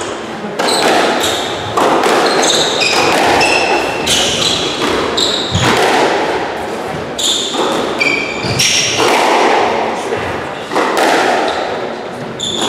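Squash rally: the ball is struck by rackets and smacks against the court walls again and again, echoing in the enclosed court, while shoes give short high squeaks on the wooden floor.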